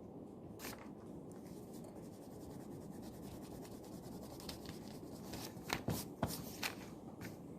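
Pen writing on paper: a quick, continuous scratching over a steady room hum, with a few louder short knocks about six seconds in.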